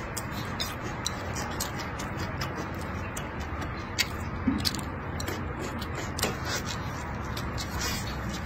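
Close-up eating sounds: irregular small clicks and smacks of chewing a mouthful of rice and stir-fried meat, with chopsticks tapping the ceramic bowl.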